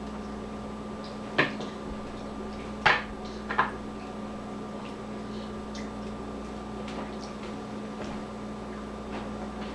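A few sharp knocks of dishes or utensils set down or banged during a meal: one about a second and a half in, then two close together around three seconds. A steady low hum runs underneath.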